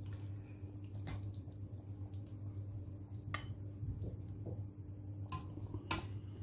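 A spatula clinking a few times against a metal pan and a ceramic bowl as a piece of curried salmon is served out, over a steady low hum.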